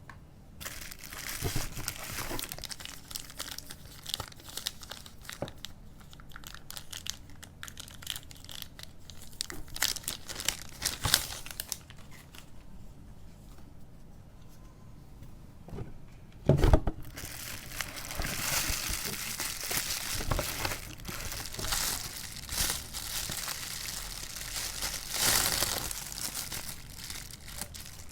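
Plastic packaging crinkling and rustling in irregular bursts as a new camera's box is unpacked, with one louder knock a little over halfway through.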